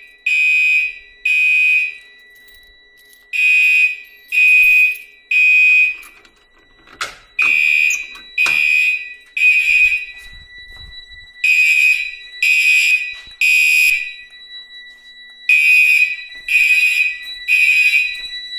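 Fire alarm horns sounding in the temporal-three evacuation pattern: three short blasts, a pause, then three more, repeating. From about two seconds in, a steady high tone sounds beneath the horns.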